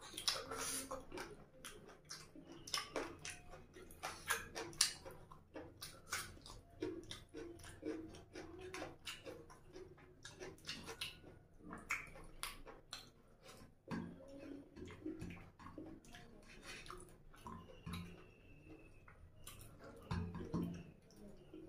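Mouth sounds of a person eating curry and rice by hand: wet chewing and lip smacks in an irregular run of short clicks.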